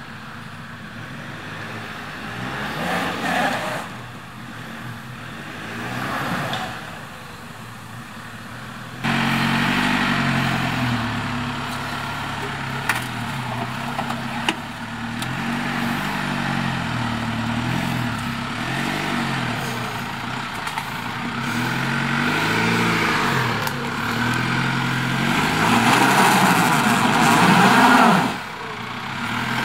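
Holden Colorado ute's engine working at low speed through a deep, muddy rut, its revs rising and falling again and again as it crawls. It is louder from about nine seconds in and loudest just before the end.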